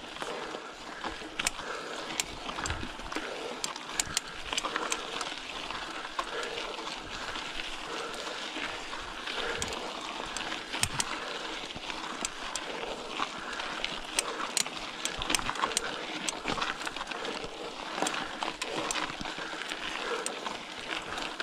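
Bicycle being ridden over a rough surface: a steady rolling noise with frequent irregular clicks and rattles from the bike.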